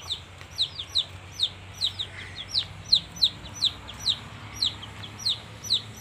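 Chicks peeping: a continuous run of high, downward-sliding peeps, about four or five a second.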